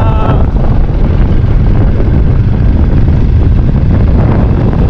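Heavy, steady wind noise buffeting the microphone on a moving motorcycle, with the motorcycle and road noise running underneath.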